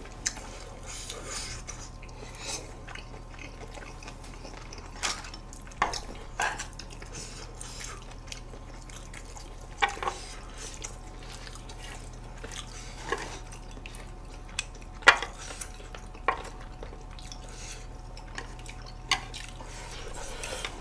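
Eating sounds: about a dozen irregular sharp clicks and wet smacks from chopsticks tapping the griddle and dishes and from chewing, over a faint steady hum.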